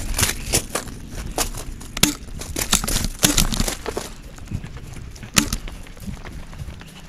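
Footsteps of a person moving quickly over pavement and gravel, with crunching and rustling from the handheld camera and clothing, and a few sharper knocks about two, three and five seconds in.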